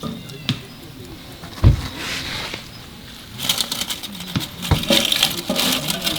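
Dry firewood being handled and worked: a few knocks and thumps, a short scrape, then a busy run of scraping and crackling in the second half.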